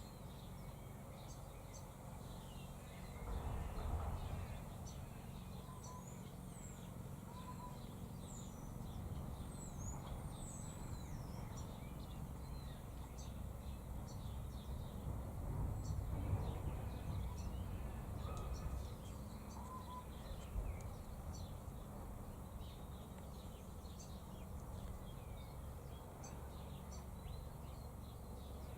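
Birds chirping and calling: many short high-pitched chirps and downward-sweeping notes, with a few lower, short whistles now and then. Underneath is a low rumble that swells twice.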